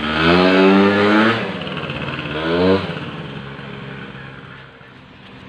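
Small two-stroke scooter engine revved twice, each rev rising in pitch, the second shorter, then dying away.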